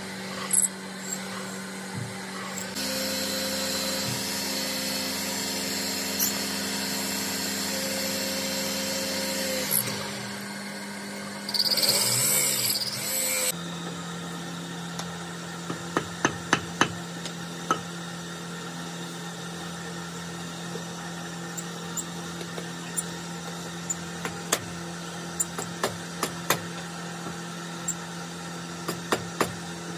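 A workshop power tool running steadily; it starts about three seconds in and stops near ten seconds. A short, louder burst of machine noise follows about twelve seconds in, then a steady hum with scattered small clicks.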